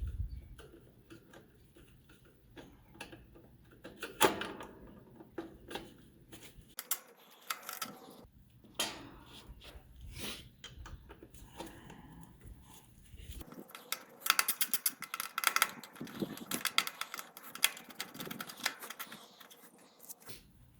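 Irregular sharp clicks and knocks of hard objects being handled, with a dense run of rapid clicks between about fourteen and sixteen seconds in.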